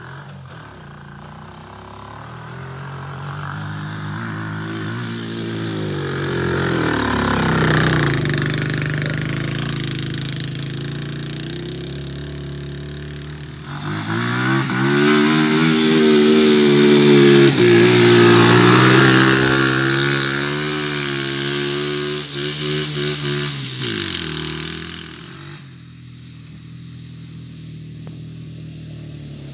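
Small 125 cc single-cylinder four-stroke ATV engine (KXD) revving hard under load on a steep dirt climb, its pitch rising and falling with the throttle. It grows louder as the ATV draws near, is loudest in the middle, and drops off abruptly near the end.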